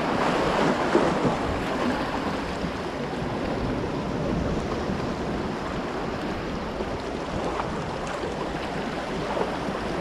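Small sea waves washing and splashing against the concrete tetrapods of a breakwater, a steady rushing wash, with wind buffeting the microphone.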